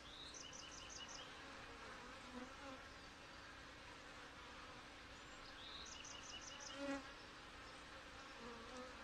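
Honey bees from a strong colony humming over the open top bars of a hive box, a faint steady buzz with bees droning around, louder for a moment about seven seconds in.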